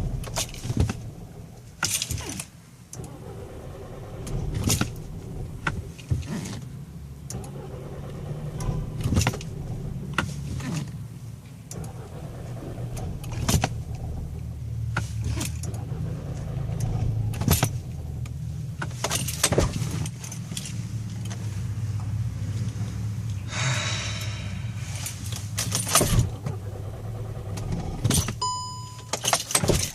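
Start attempt in a hot 2012 Volkswagen Eos that won't start after a short heat soak: keys jangling and many sharp clicks over a steady low drone from the car. A short electronic chime sounds near the end.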